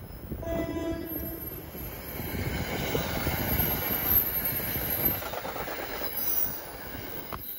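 NJ Transit push-pull commuter train passing close by, led by a coach cab car: a short horn note about half a second in, then the rumble and clatter of the coaches' wheels on the rails, swelling as the cars go by and easing near the end.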